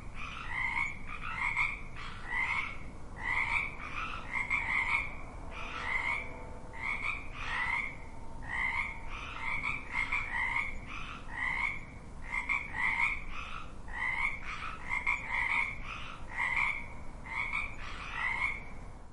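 Frogs croaking: short calls repeat about twice a second, steadily, with one or more frogs calling over a faint background hiss.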